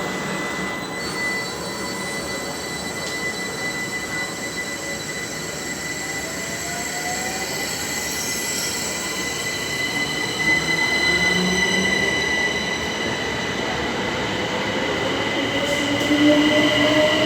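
Electric passenger train at the station: a steady high whine, joined by motor tones that rise in pitch and grow louder over the last several seconds.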